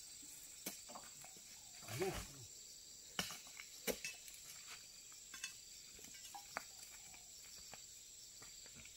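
About half a dozen short, sharp knocks and thuds, spaced irregularly, from oil palm fruit bunches being speared with a spiked pole and heaved onto a truck, over a steady high drone of insects.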